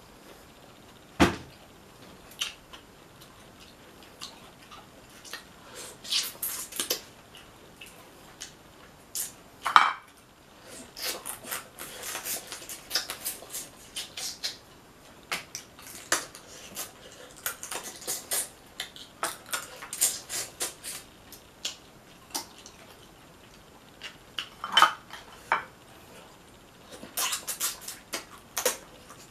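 A person eating Dungeness crab and corn from a seafood boil: irregular chewing, smacking and crackling as shell and meat are picked and bitten, with scattered sharp knocks, the loudest about a second in and about ten seconds in.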